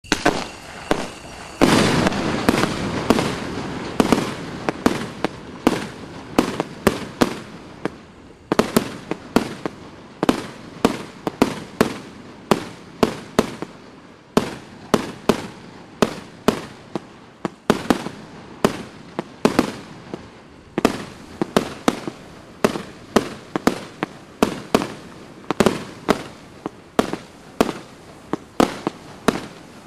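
A 150-shot fireworks cake (AF150-C, 30 mm tubes) firing shot after shot in a continuous run. Sharp launch bangs and shell bursts come about two to three a second, each with a short echoing tail.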